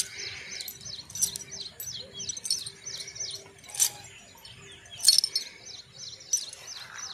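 Birds chirping: a quick falling chirp repeated about three times a second, with a few sharp clicks, the loudest about four and five seconds in.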